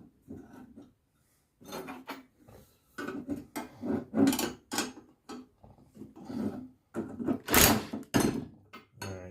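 Hand tools and steel parts knocking and scraping together as bolts with washers and nylon nuts are fitted and tightened on a log splitter's support legs: irregular clanks and rubbing, the loudest knocks about seven and a half and eight seconds in.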